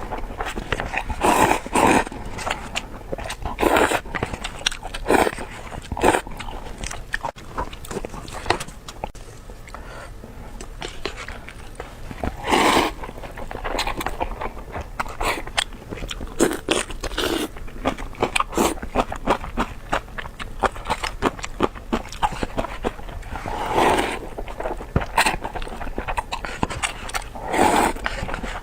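Close-miked eating sounds of a person eating noodles: continual wet chewing and smacking clicks, with louder mouth noises every few seconds.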